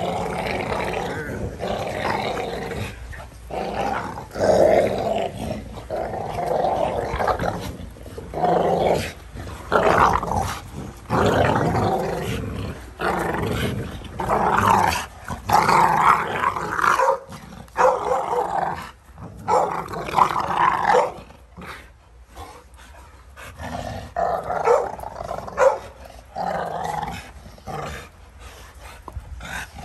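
American bully dogs growling over and over as they tug on a rope toy between them, in play. There is a short lull about three-quarters of the way through.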